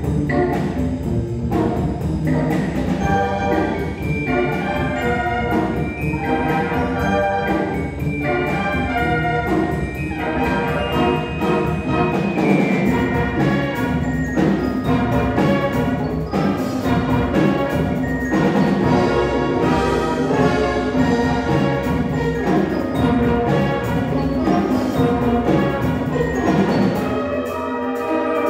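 Live brass band playing: trumpets, trombones, horns and a sousaphone over percussion, full and sustained, with a rhythmic pulse. The bass drops away near the end.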